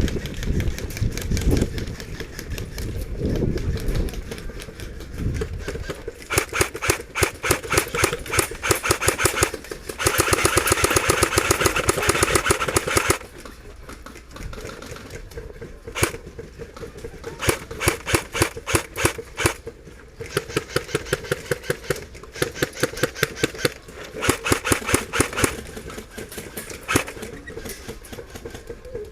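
Airsoft rifles firing in rapid bursts, a fast rattle of evenly spaced shots, with one longer sustained burst of about three seconds partway through. The first few seconds are a low rumble of movement before the firing starts.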